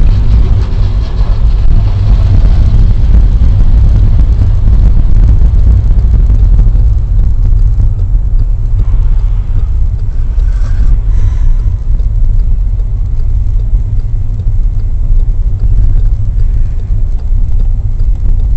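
Steady low rumble of a car driving at speed, its engine and tyre noise heard from inside the cabin through a dashcam's microphone, with the echo of a road tunnel.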